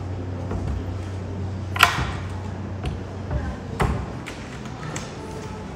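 Small hard objects clinking and knocking: a sharp clink with a short ring about two seconds in, a second knock about four seconds in and a few lighter ticks, over a steady low hum.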